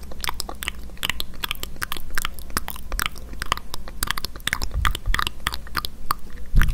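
A fluffy makeup brush swept directly over a handheld digital recorder's microphones, making a dense, close crackle of many small scratchy ticks. There are low muffled bumps near the middle, and the loudest comes near the end as the bristles press over the mic.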